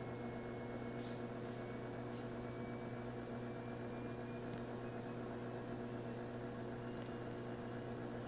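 Steady electrical mains hum from the bench electronics, with a faint thin whine that slowly rises in pitch as the function generator's frequency is turned up.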